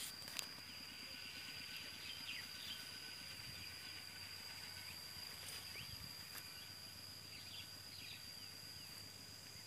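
A steady, high-pitched insect trill over faint outdoor hiss, with a few faint clicks.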